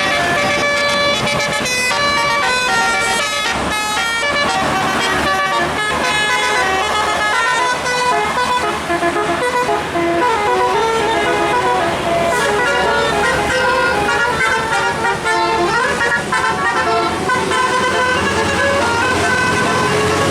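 Bus 'telolet' musical air horns playing quick melodies of short stepped notes, one tune after another, with a rising sweep about three-quarters of the way through.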